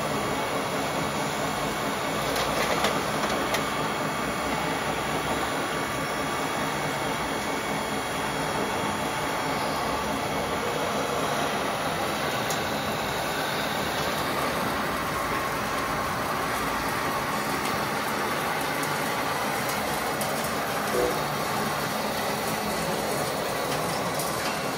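Steady mechanical whir of radio-controlled model trucks and construction machines running.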